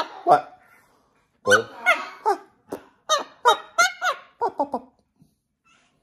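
Blue-and-gold macaw giving a quick run of short squawks and chattering calls, beginning about a second and a half in and lasting a few seconds.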